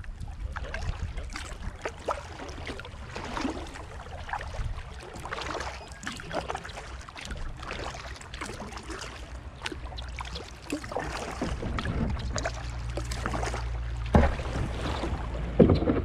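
Kayak paddle strokes dipping and splashing in creek water, every second or two, with water dripping and lapping against the hull. Wind begins buffeting the microphone in the last few seconds, and there are two sharp knocks near the end.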